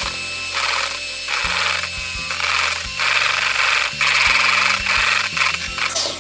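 Electric hand mixer whipping egg whites in a plastic bowl, a steady loud whir, winding down just before the end. Background music plays underneath.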